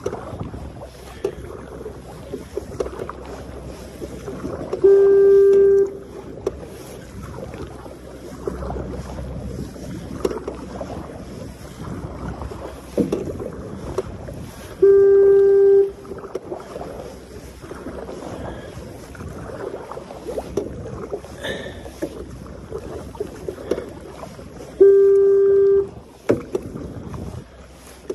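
Kayak paddle strokes dipping and splashing in seawater, with wind on the microphone. Three times, about ten seconds apart, a loud steady tone sounds for about a second.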